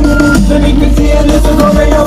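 Loud music with heavy, deep bass.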